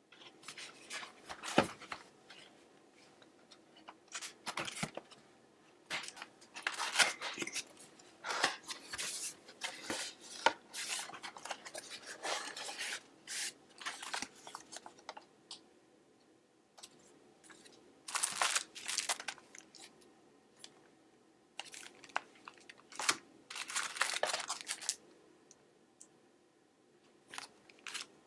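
Cardboard and plastic packaging being opened by hand: irregular bursts of tearing, rustling and crinkling with short pauses between them.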